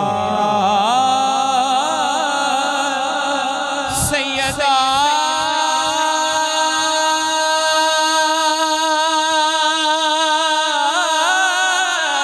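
A male voice sings a devotional chant in long, held, wavering notes over a low pulse of about two to three beats a second. Two sharp knocks come about four seconds in.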